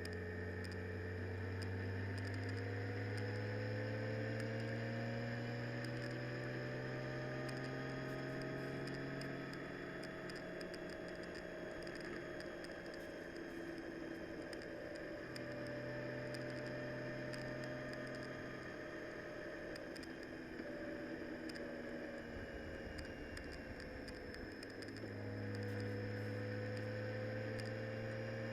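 A vehicle's engine running on the move, its pitch slowly rising and falling with speed, fading back for a while in the middle and pulling strongly again near the end. Light ticking of raindrops runs throughout.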